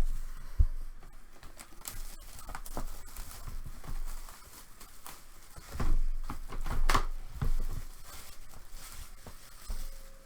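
A sealed trading-card box being opened: packaging torn and crinkled, with irregular knocks from handling the box, the loudest just after the start and around two-thirds of the way through.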